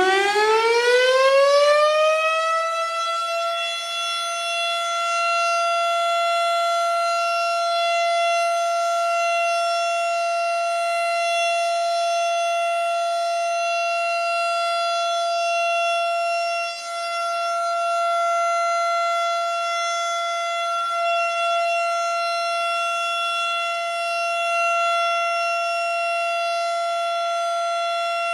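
Federal Signal STH-10A fire siren sounding a test. It finishes winding up over the first few seconds, its pitch rising, then holds one steady tone, with a brief dip in loudness about 17 seconds in.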